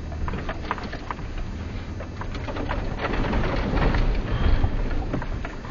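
Suzuki Grand Vitara's 2.5-litre V6 engine labouring as the SUV is driven through deep mud, near the point of getting stuck. The noise grows louder from around halfway in, with mud and water spattering and knocking against the underside and body.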